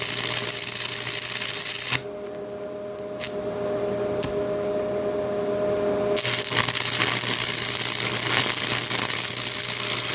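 Electric arc welding: two runs of steady crackling hiss with a low hum under them. The first run breaks off about two seconds in. A quieter hum with a couple of steady tones fills the pause, and the arc strikes again about six seconds in and keeps going.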